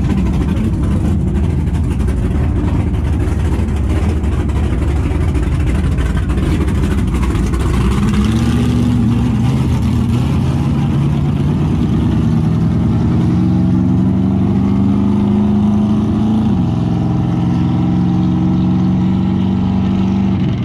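Drag-racing pickup trucks' engines running loud at the starting line, then revving hard as they launch and pull away down the strip, the engine pitch climbing and holding high with a brief dip about three-quarters of the way through.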